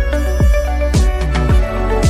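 Background music with a steady beat: a falling electronic kick drum about every half second or so under sustained instrument tones.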